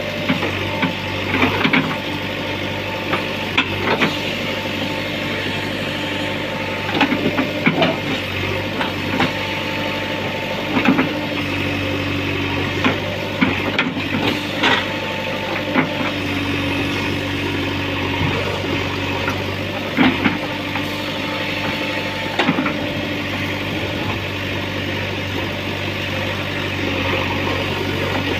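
JCB 3DX backhoe loader's diesel engine running steadily, with a higher whine that comes and goes and repeated short knocks and clanks.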